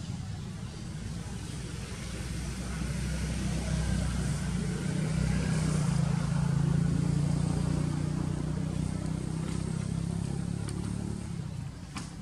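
A motor vehicle's engine passing by: a low hum that builds over a few seconds, is loudest about halfway through, and fades away near the end.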